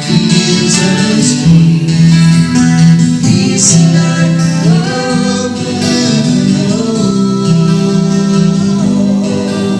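Music: singing with instrumental accompaniment, held low notes under a moving melody line.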